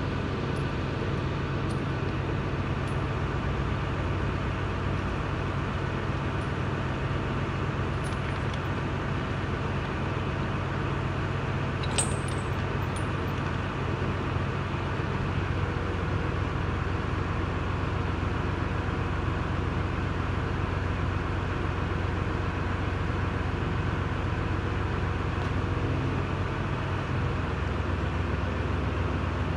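A steady mechanical drone, like a motor or engine running, that shifts slightly in its low note about halfway through and again near the end. A few light metallic clinks come early, and a sharper one about twelve seconds in, as lifting chain and hooks are handled.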